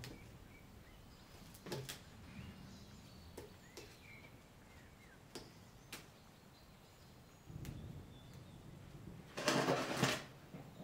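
Japanese maple leaves being plucked off a bonsai by hand: soft snaps and small rustles every second or two, with a louder rustle about a second long near the end as the hands work at the base of the potted tree. Faint bird chirps sound in the background.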